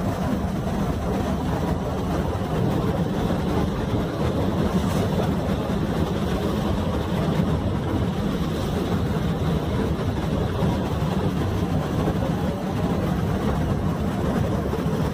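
Passenger ferry underway: the steady drone of its engine mixed with the rush of its churning wake.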